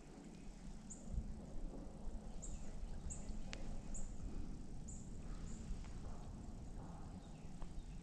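A small bird's high, thin call notes, short and slightly falling, repeating about once a second over a steady low rumble. There is a single sharp click about three and a half seconds in.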